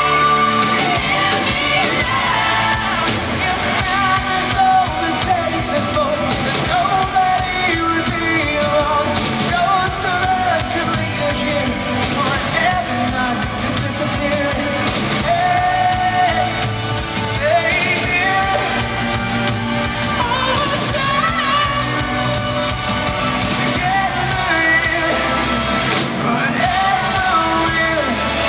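Live rock band performing: lead vocals sung over electric guitars and drums, loud and continuous.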